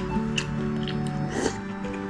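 Background music with sustained, slowly changing notes, with a few light clicks over it.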